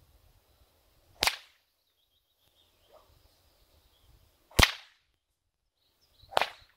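A new 9-foot, 16-plait leather bullwhip cracking three times, each a single sharp crack, the middle one the loudest. The cracks come from light, easy throws made to test that the whip cracks with minimal effort.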